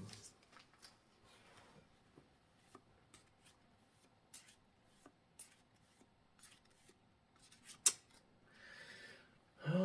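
Trading cards and foil packs being handled: scattered light ticks and slides of cards. There is one sharp click about eight seconds in, followed by a short rustle.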